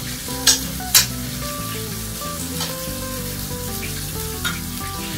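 Thick pork chops sizzling in butter in a cast iron skillet while a spoon bastes them, searing the outside of the sous-vide-cooked chops. Two sharp clicks about half a second and a second in, the spoon knocking against the pan.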